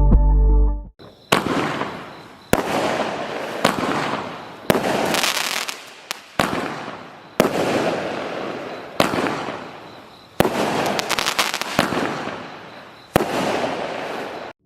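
Consumer firework cake firing a string of about ten shots, roughly one every second or so. Each is a sharp bang followed by a rush of sound that fades before the next. Background music cuts out about a second in, just before the first shot.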